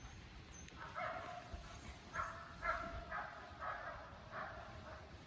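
A dog barking repeatedly, about six barks starting about a second in.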